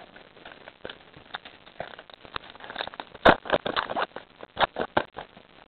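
A Topps baseball card pack being handled and opened, making irregular crinkling and crackling that grows denser and louder about three seconds in.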